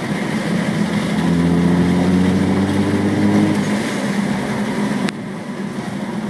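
Supercharged V6 of a 2003 Nissan 350Z pulling under acceleration while driving, its pitch rising slightly, then easing off suddenly about five seconds in.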